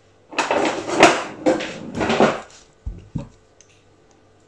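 Kitchen handling sounds over a wooden chopping board: a few rustling, scraping strokes, then two dull knocks on the wooden table as something is set down.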